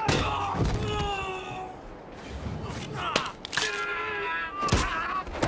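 Fistfight: heavy blows and thuds land several times, and between them come two long, pained screams, one about a second in and another a little past three and a half seconds.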